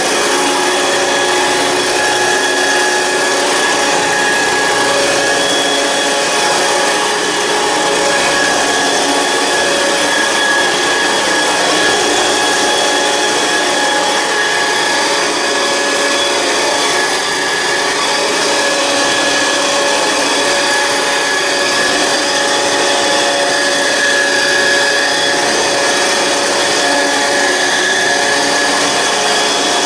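A 1967 Hoover Senior 652A upright vacuum cleaner running steadily, with a motor whine over the rush of air. The front is vibrating badly, which the owner puts down to the brush bar and a belt that needs replacing, and its motor bearings want greasing.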